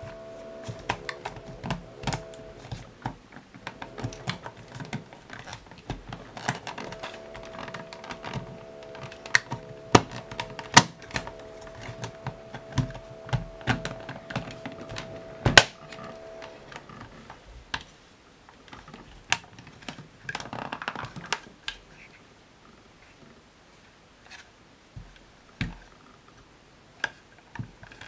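Hard plastic parts of a Dyson DC62 handheld vacuum being handled and fitted together: irregular sharp clicks, taps and knocks as the rear cover is worked onto the motor housing, thinning out in the second half with a short scrape about 20 seconds in. A faint steady hum of several tones runs underneath through much of the first half.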